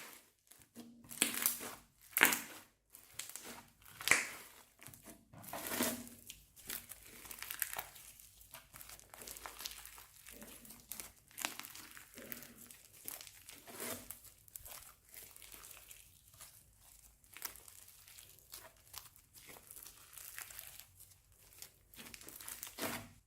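Slime being worked by hand, giving irregular crinkly, sticky squishes; louder strokes over the first few seconds, then a run of small quick clicks and pops.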